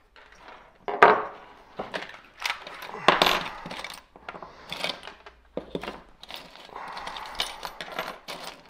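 Small metal parts and hand tools clinking and tapping on a work surface: an irregular string of sharp clicks and rattles, loudest about one second and three seconds in.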